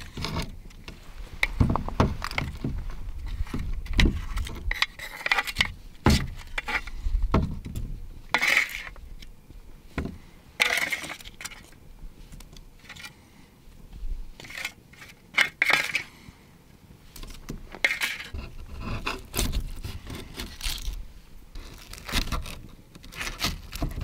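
Metal tongs and a metal baking tray clinking, knocking and scraping as roasted vegetables and chicken wings are served onto a bamboo plate, in irregular short knocks and scrapes.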